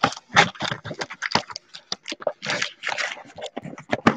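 Trading cards handled close to the microphone: a run of short, irregular taps, scrapes and rustles, with a longer sliding rasp about two and a half seconds in.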